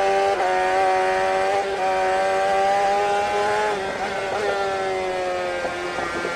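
An engine running at high, fairly steady revs, its pitch wavering slightly and sagging a little in the second half.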